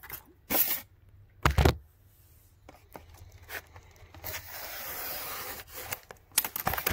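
Handling noise: a few short knocks and a heavier thud in the first two seconds, then about two seconds of steady rubbing and scraping, and a few clicks near the end.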